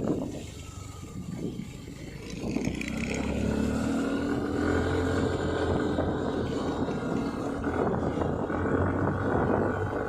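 Motorcycle engine running while riding along, with road and wind noise; it gets louder about two seconds in as it picks up speed.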